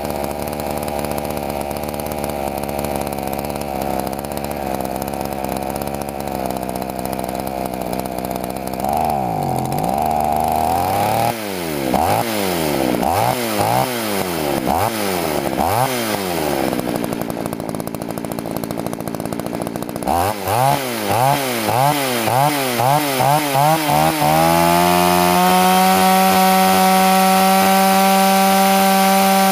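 Poulan chainsaw's two-stroke engine running during warm-up before carburettor tuning: it runs steadily at first, is revved up and down about once a second for several seconds, settles, is revved in quicker blips about twice a second, then climbs near the end to a steady high-speed run.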